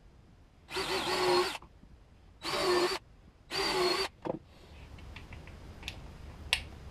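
Cordless drill run in three short bursts, driving screws to fasten the stacked layers of a wooden bending form together, followed by a few light clicks and a sharp tap near the end.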